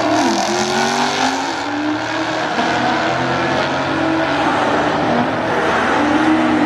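Two drag cars, a Nissan GT-R and a Dodge Challenger, accelerating hard side by side off the line. Their engine notes climb and drop back with the gear changes in the first second or two, then run on steadily down the track.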